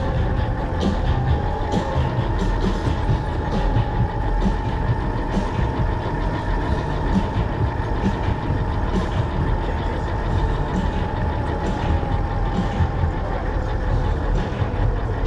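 Radio-controlled car driving over asphalt, heard from a camera riding on it: a steady motor whine that climbs a little about a second in and eases near the end, over a rough rumble of the small tyres on the pavement, with scattered small ticks.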